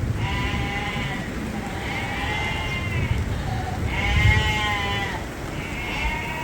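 Sheep bleating in a barn: four separate drawn-out bleats, each about a second long, over a low rumbling background noise.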